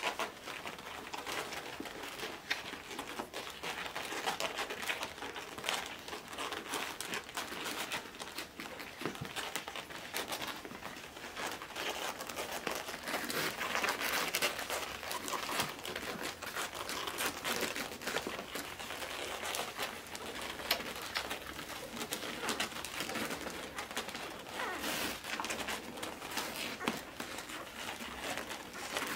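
Eleven-day-old miniature Australian Shepherd puppies nursing, with small squeaks, grunts and wet suckling clicks, and light rustling on the whelping pad.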